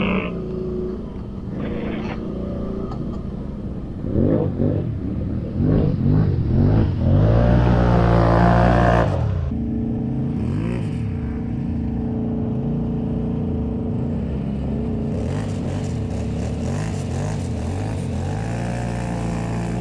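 Quad bike (ATV) engine revving up and down several times, loudest about seven to nine seconds in. It then runs at a steady, lower speed, with a few light blips of throttle near the end.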